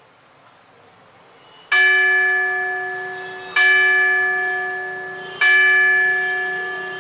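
Three strokes of an electronic school gong bell from a Micro Controls SBELL8012 automatic school bell controller's traditional bell sound output. The strokes come about two seconds apart, and each rings out and slowly fades. Three gongs are the bell for the third period.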